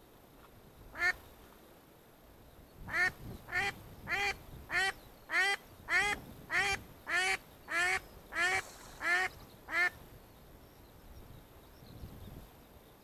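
A hen duck quacking: one quack about a second in, then a run of about twelve loud quacks, evenly spaced at a little under two a second.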